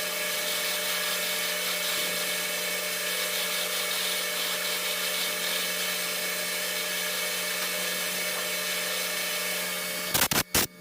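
Lathe running steadily, a hum with a few fixed tones and a hiss of machining noise over it. Near the end it breaks off in a few sharp clicks.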